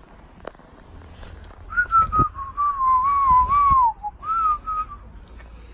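A person whistling a wavering tune for about two seconds, followed by a short phrase of a couple of notes. A few soft knocks are heard along with it.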